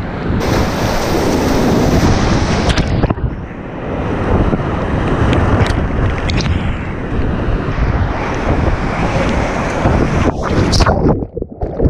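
Whitewater rapid rushing and splashing right around a kayak, with spray and water buffeting the action camera's microphone. The noise drops away sharply near the end.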